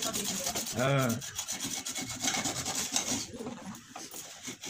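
Steady rubbing and scraping, with a short pitched vocal sound about a second in.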